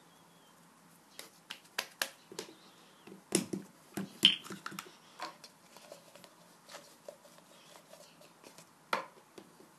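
Handling noise: scattered taps and clicks of hands working play dough on a tiled surface and moving a plastic bottle cap, the loudest a cluster about three to four seconds in.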